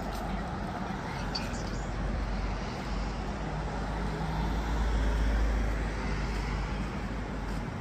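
Road traffic, with a low rumble that swells and is loudest about five seconds in, as a vehicle passes.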